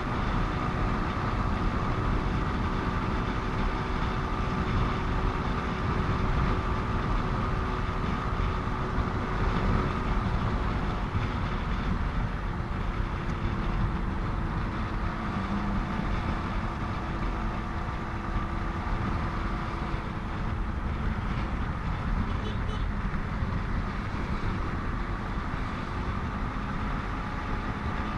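Steady road noise from riding a motorcycle along a highway: wind rush and engine hum, with traffic around.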